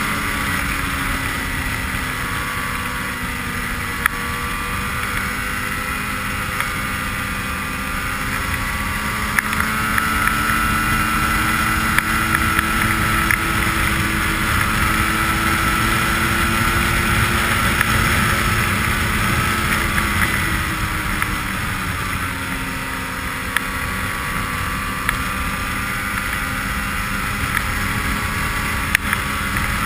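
Ski-Doo snowmobile engine running at trail speed. Its pitch rises slowly about a third of the way in and drops back after about two-thirds, with wind noise on the microphone and a few brief sharp knocks.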